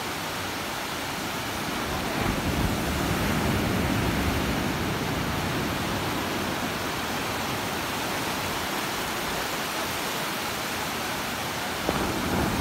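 Ocean surf breaking and washing in at the shoreline: a continuous rush of waves that swells about two seconds in and again near the end.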